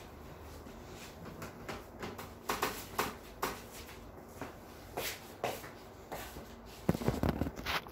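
Bedding rustling as a sheet and pillow are pulled straight on a bed, with a few short soft knocks. About seven seconds in come a cluster of louder, close knocks and rubbing as a hand handles the camera.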